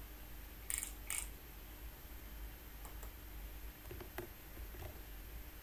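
Computer mouse clicking: two sharp clicks about a second in, then a few fainter clicks and ticks over a faint steady hum.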